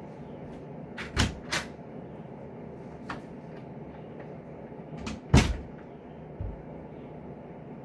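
A room door being handled and shut: two knocks about a second in, then a louder bang with a latch click about five seconds in, followed by a short low thump.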